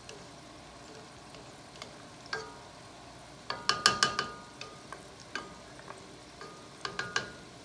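A metal cooking utensil clinks and scrapes against a pan in a few quick ringing strikes, loudest in two clusters near the middle and near the end. Underneath is a faint steady sizzle of food frying in oil.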